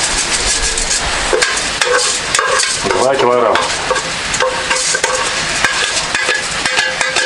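Washed rice being tipped from an enamel pot into a kazan of boiling pilaf broth, with a metal skimmer scraping and tapping against the pot, over a steady sizzling, bubbling hiss from the broth.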